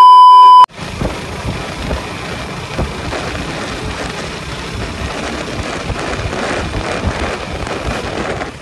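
A loud, steady electronic test-tone beep for just over half a second, then the steady rushing noise of riding a KTM RC motorcycle on a wet road: wind buffeting the microphone over the engine and tyre noise.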